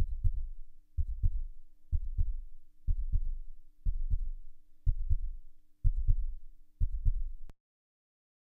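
Heartbeat sound: a steady lub-dub, each beat a low double thump, about once a second. A faint steady hum runs under it, and the beats stop shortly before the end.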